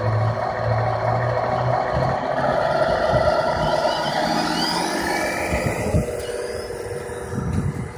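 Tamiya King Hauler 1/14-scale RC semi truck pulling its tanker trailer: a low steady hum for the first couple of seconds, then the electric drive whines and rises in pitch as the truck speeds up, with some rattle from the running gear.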